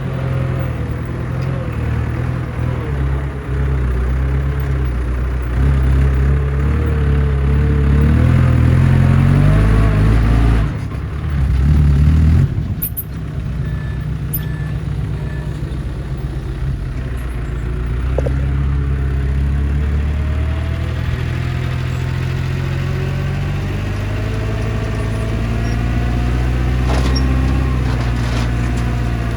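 Heavy diesel construction machinery running, its engine note shifting about ten to twelve seconds in, then climbing slowly in pitch as it works under throttle.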